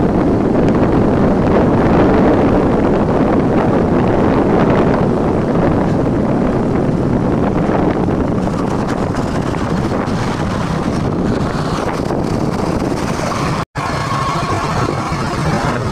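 Wind rushing over the microphone of a camera held on a moving motorcycle, with engine and road noise underneath. The sound cuts out for an instant near the end.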